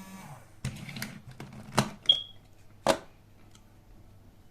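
Sharp plastic clicks and knocks as a small toy is opened and handled, about five in the first three seconds, one with a brief high ring just after it.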